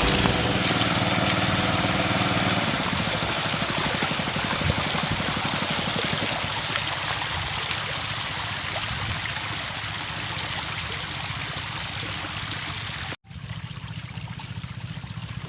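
Water rushing and splashing steadily, with a low motor hum underneath that fades over the first several seconds. About 13 seconds in it cuts abruptly to a quieter stretch of running water.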